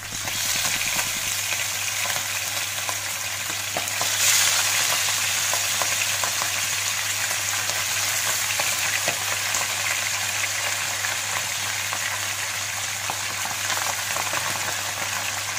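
Pabda fish frying in hot mustard oil in a frying pan: a steady sizzle with fine crackling, turning louder about four seconds in.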